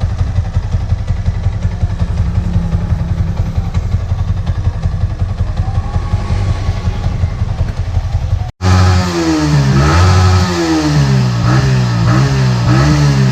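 Yamaha Vixion R's single-cylinder engine idling steadily, then after a brief break revved up and down several times. It is running through an 'infus' carbon-cleaning treatment, which burns off the deposits and blows them out through the exhaust.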